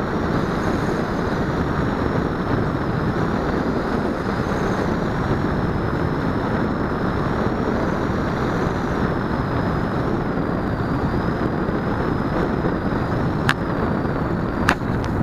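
Steady rush of air and propeller noise on the onboard camera's microphone of a Zagi flying-wing RC plane in flight. A faint high motor whine wanders up and down in pitch. Two sharp clicks come near the end.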